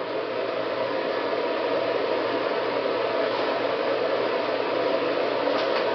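Ventline V2262 bathroom exhaust fan running on its newly fitted replacement blower motor: a steady rush of air with a faint low hum under it, building slightly over the first second or so as it comes up to speed.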